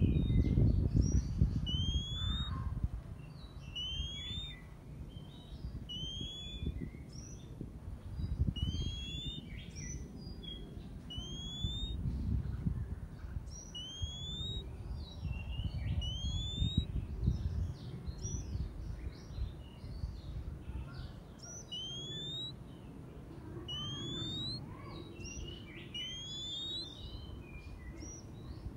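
Oriental magpie-robin singing: repeated clear, rising whistled notes and short trills every second or two, over a gusty low rumble.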